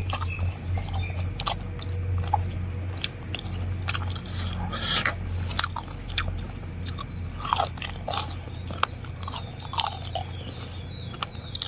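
Close-miked person biting and chewing food, with irregular crunches and crackles, over a steady low hum.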